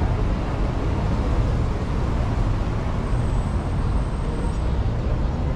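Steady city street traffic: a dense rumble of passing vehicles, heaviest in the low end, with a faint thin high whine for about a second and a half past the middle.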